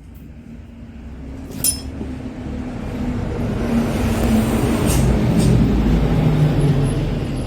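Car engine running with its viscous-clutch cooling fan, the sound building steadily over about five seconds and easing slightly near the end. A sharp click comes about a second and a half in.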